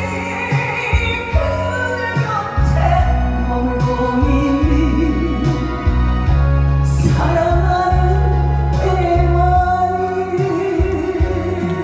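A woman singing a Korean trot song live over an instrumental backing track through a PA system, her sustained notes wavering with vibrato.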